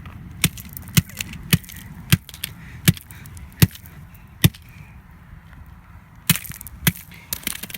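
A flip phone being struck over and over, a sharp crack with each blow: about seven blows at an even pace, a pause of about two seconds, then four more in quick succession near the end.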